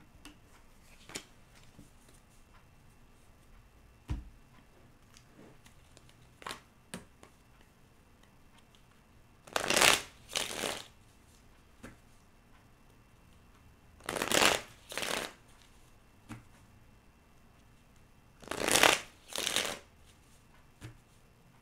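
A deck of tarot cards being shuffled by hand three times, each shuffle two quick rushes of cards, about four to five seconds apart, with a few light taps of the cards in between.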